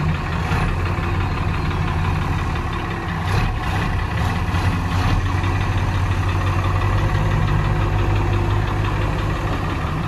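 Heavy diesel engine running steadily, with a few brief knocks between about three and five seconds in.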